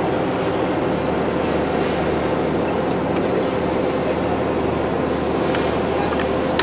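Cruise ship under way at speed: its engines make a steady drone, and water rushes along the hull. Wind buffets the microphone.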